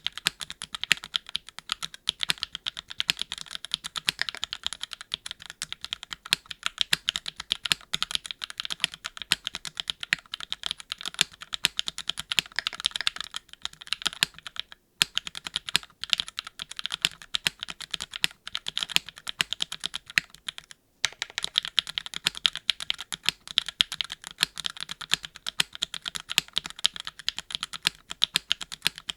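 Fast, continuous typing on a Keycult No.2 TKL custom mechanical keyboard with Gateron x Swagkey Deepping switches and GMK keycaps, in a gasket-mounted aluminum-plate build without foam. A dense stream of key clicks, pausing briefly about halfway through and again about two-thirds of the way in.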